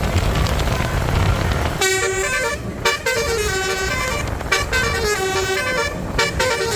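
A bus's basuri horn, a multi-trumpet telolet horn, plays a tune in quick stepping notes. The first two seconds are a rumble of engine and road noise before the horn comes in.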